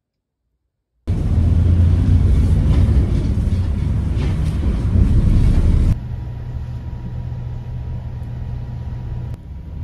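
Low rumble of a moving vehicle heard from on board, starting abruptly about a second in. About six seconds in it cuts to a quieter rumble with a faint steady whine.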